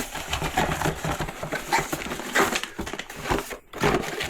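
Cardboard box and packaging being opened and handled: irregular rustling and scraping with light knocks.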